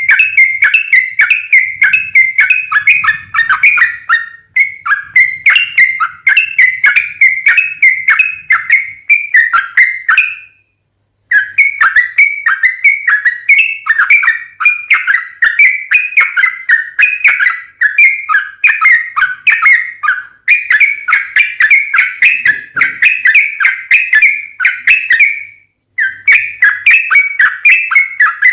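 Yellow-vented bulbul (trucukan) singing loudly: long runs of rapid, bubbling chattering notes, breaking off for about a second around ten seconds in and again briefly near the end.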